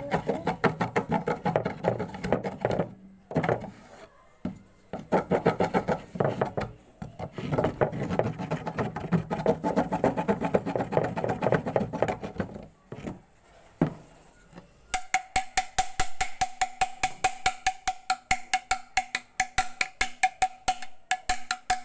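Hacksaw blade rasping against a bamboo pole in rapid short strokes, in bursts with brief pauses. About two-thirds of the way through it changes to an even run of sharper clicks, about four a second, over a steady held tone.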